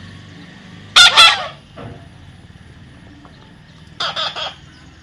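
A parrot giving two loud, harsh calls: a longer one about a second in and a shorter one about four seconds in.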